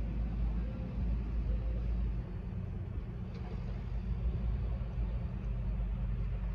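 Low, steady rumble of outdoor city background noise, with a faint short click about three and a half seconds in.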